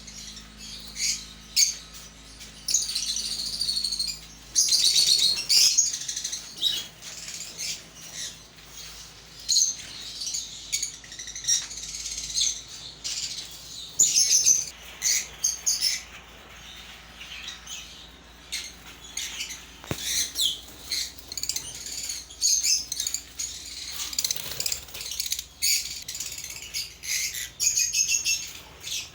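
A group of parrots chirping and calling, with many short high-pitched calls overlapping and coming in quick bursts.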